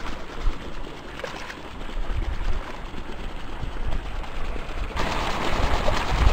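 Wind buffeting the microphone in low rumbling thumps over a steady hiss, with a hooked trout splashing at the surface. The hiss steps up louder about five seconds in.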